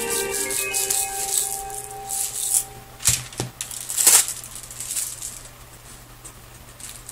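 Background music that fades out within the first two seconds, then irregular crinkling and rustling handling noises, loudest about three and four seconds in, over a steady low hum.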